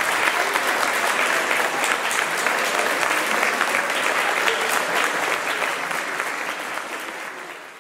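Audience clapping in a large hall, steady applause that fades out near the end.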